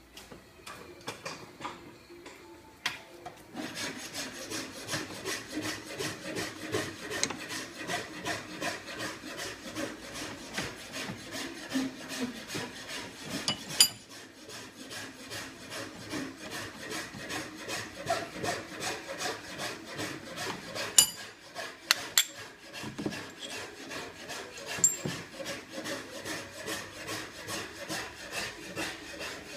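Rhythmic rasping strokes of hand filing, starting a few seconds in and carrying on evenly, with a few sharp metallic clicks among them.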